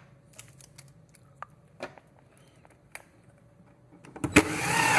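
A few light handling clicks, then near the end a power drill spins up loudly with a rising whine, driving a screw into the shelf.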